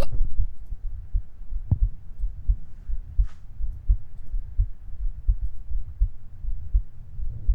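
A person hiccuping, recorded close up: a sharp hiccup right at the start and a smaller one about a second and a half later, over a constant low thumping rumble.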